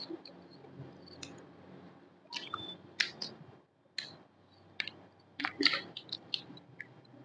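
A person chewing and crunching fried snacks close to the microphone, in short scattered crunches with quiet gaps between them.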